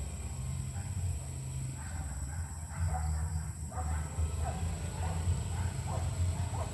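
A dog yipping and whimpering several times, short high cries over a low steady rumble.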